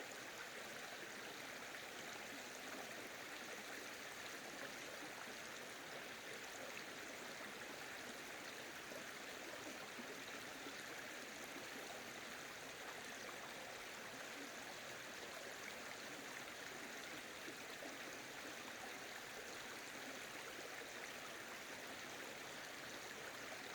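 Mountain valley stream flowing over rocks: a steady, even rush of water that does not change.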